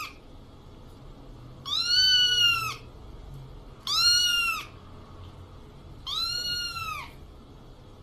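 An animal call that arches up then down in pitch, under a second long, repeated three times about two seconds apart, with the tail of another call at the start. A faint steady background hiss runs underneath.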